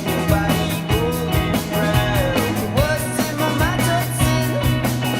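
Rock music with singing, a steady drum beat and held bass notes.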